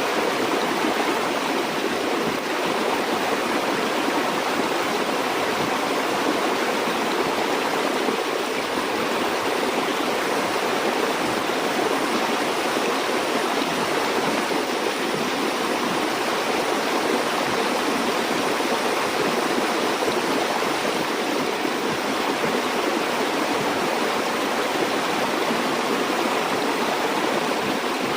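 River or stream water flowing steadily over rocks, a continuous rushing and babbling.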